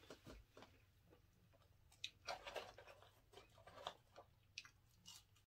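Faint chewing, with scattered clicks and crackles from handling cardboard takeout boxes. The sound cuts off suddenly near the end.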